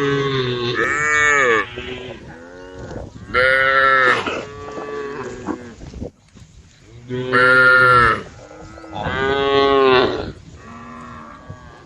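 A herd of cows mooing: long calls one after another, a second or so each, some loud and some fainter, with a few overlapping.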